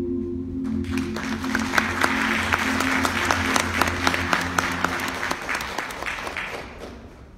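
Audience applauding over an ambient music cue of low held tones. The clapping starts about a second in and dies away near the end, and the music fades out partway through.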